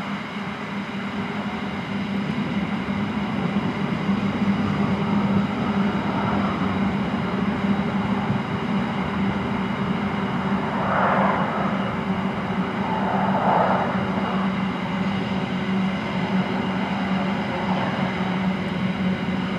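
Empty steel wagons of a freight train rolling past on the rails, a steady wheel-on-rail rumble with a constant low hum that grows louder over the first few seconds. Brief louder rattles come near the middle.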